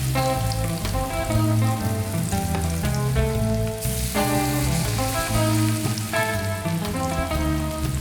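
Chicken thighs sizzling as they sauté in hot oil in a pan, with background music playing alongside.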